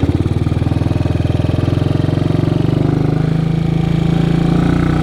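1958 Matchless G3 single-cylinder four-stroke engine running steadily at cruising speed, its exhaust a fast, even pulse of firing strokes.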